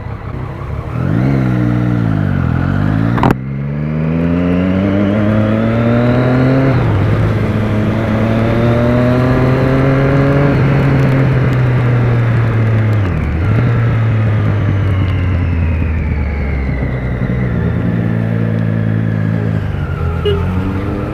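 Triumph Speed Triple 1050's three-cylinder engine revving once and then pulling away. A sharp click comes about three seconds in, then the engine note climbs and drops back at each gear change as the bike accelerates through the gears, dipping again briefly in the middle. Tyres hiss steadily on the wet road underneath.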